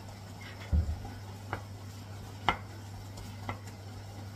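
Wooden spoon stirring in a coated metal pot, knocking sharply against its side about once a second, after one dull thump under a second in. A steady low hum runs underneath.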